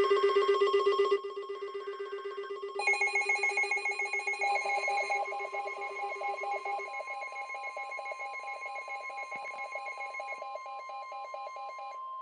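Emergency alert tones: several layered, rapidly pulsing electronic beeps sounding together, loudest for the first second and changing pattern a few times. Near the end they thin out to a steadier tone, the attention signal that comes before the next warning is read.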